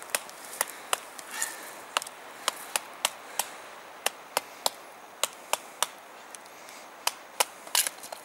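About twenty sharp wooden knocks, unevenly spaced at two to three a second: a knife being batoned with a wooden stick to split and shape a hearth board for a fire drill.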